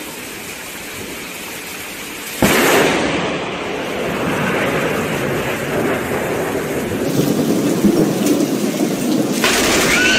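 Steady rain, then about two and a half seconds in a sudden loud thunderclap from a close lightning strike, rumbling on for several seconds over the rain.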